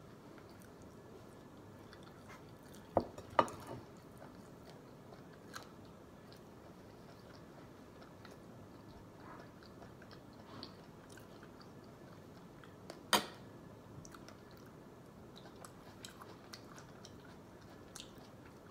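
Close-up chewing of raw shrimp, with soft wet mouth clicks throughout. Two sharp clicks come about three seconds in, and a louder one about thirteen seconds in.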